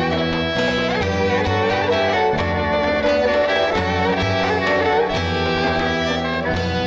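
Instrumental background music with held, bowed-string notes over a steady bass line.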